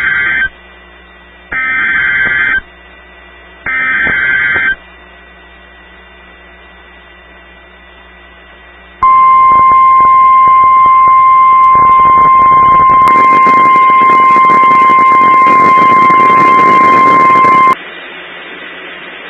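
NOAA Weather Radio EAS alert signal received over the radio: three short, shrill data bursts of the SAME header about a second each (the first already under way), a few seconds of hiss, then the steady single-pitch 1050 Hz warning alarm tone for about nine seconds, which cuts off abruptly into hiss. It signals the start of a tornado warning broadcast.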